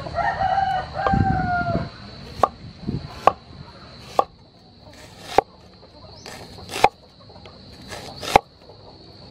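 A rooster crows for about two seconds at the start. Then a cleaver chops down through an onion onto a wooden chopping board, six sharp chops roughly a second or so apart.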